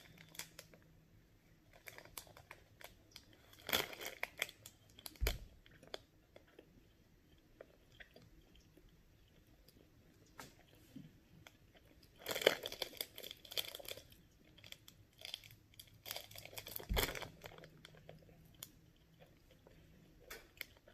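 Quiet chewing of a soft Little Debbie Zebra Cake snack cake, broken by short spells of plastic wrapper crinkling about four seconds in and again around twelve to fourteen seconds in. There are a couple of dull knocks near five and seventeen seconds.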